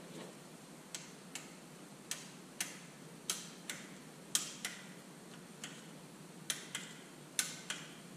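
Socket wrench clicking as cylinder head bolts are drawn down by hand: about a dozen sharp metal clicks, often in pairs, coming irregularly a second or so apart.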